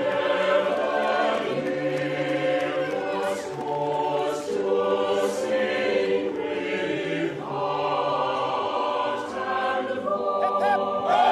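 A choir singing, several voices holding long notes in harmony.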